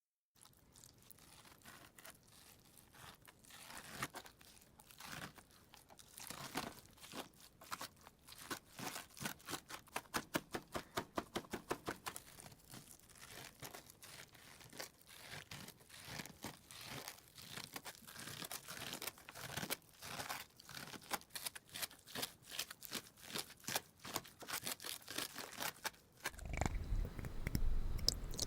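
Slime being squeezed and poked in the hands, giving runs of rapid sticky clicks and crackles that grow louder. Near the end a louder low rumble joins in.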